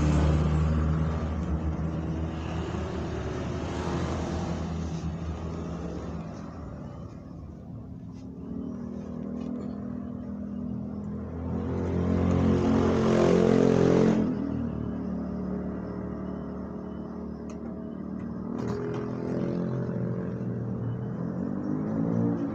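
Road traffic passing close by: vehicle engines come and go in several swells, with the loudest vehicle going past about 13 seconds in, its pitch dropping as it passes. A few light clicks are heard in between.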